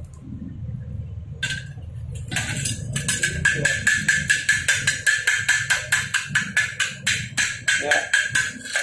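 Chipping hammer knocking slag off fresh weld beads on a steel plate: rapid metallic taps, about five a second, starting about two seconds in, with the steel ringing at one steady pitch under them.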